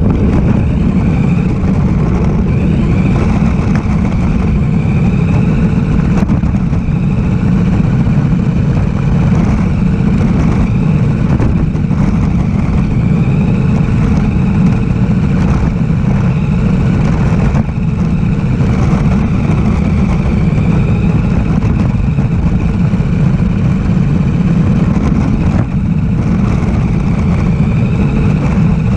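Radio-controlled car driving: a steady, loud rumble with a faint high whine that rises and falls slowly as it runs.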